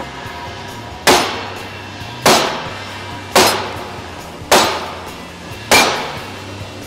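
Allison 1000 rotating clutch housing smacked down on a metal workbench five times, about a second apart, to jar the C1 piston out of its bore. Each knock is a sharp metallic bang with a short ring.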